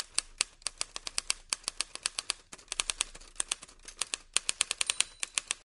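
Manual typewriter typing: a rapid, uneven run of sharp keystroke clacks, several a second, with a few brief pauses.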